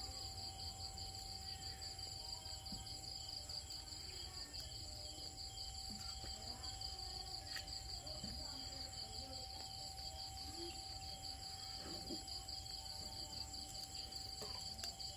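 Insects chirping steadily in a fast, even pulse, several high-pitched trills layered together, over a faint steady hum.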